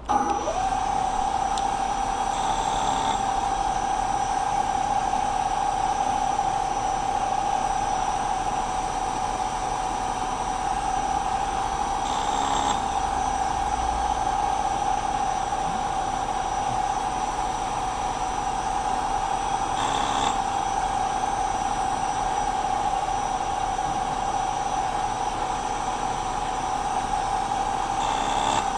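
Milling machine spindle running with a steady whine, with four brief louder moments spread through the run. The sound comes in suddenly at the start.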